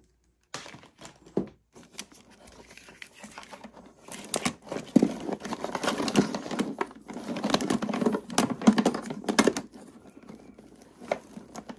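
Tangled electrical cords and AV cables being pulled and rummaged through in a plastic tote: an irregular rustle full of sharp clicks as plugs and cable loops knock together and against the bin. It is light at first, gets busy about four seconds in, and eases off near the end.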